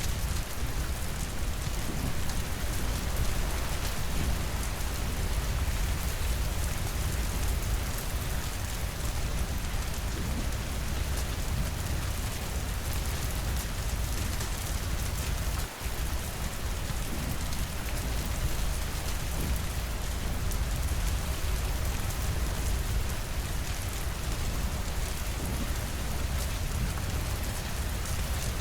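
Steady rainfall, an even hiss with a heavy low rumble beneath it. It cuts out for an instant a little past halfway.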